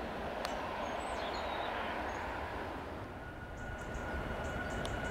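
Jet airliner engine noise from a Ryanair Boeing 737 rolling out on the runway after touchdown, a steady rumble. After a break, a distant jet on the runway gives a steady high engine whine over the rumble.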